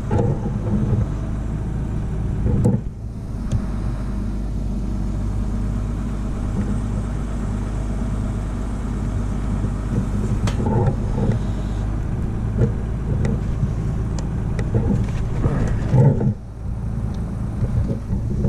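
Diesel engine of an Åkerman H10 excavator running steadily, with a few brief louder bursts about three seconds in, around ten seconds and near the end.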